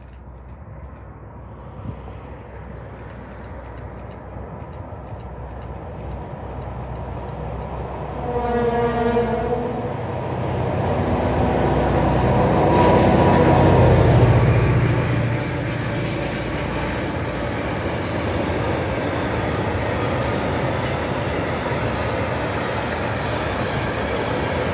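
An M62 'Gagarin' diesel locomotive with its two-stroke V12 diesel engine approaches and passes, its engine rumble growing steadily louder. It gives one horn blast of about two seconds about a third of the way in. After the locomotive goes by, a long train of tank wagons rolls past with steady wheel noise.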